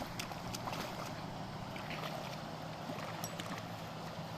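Steady rush of water with a low hum beneath it and scattered small clicks and splashes.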